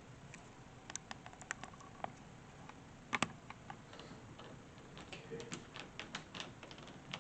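Irregular light clicks and taps of small metal and plastic lock parts and a screwdriver being handled while the interior side of a keypad deadbolt is screwed on, with a sharp double click about three seconds in.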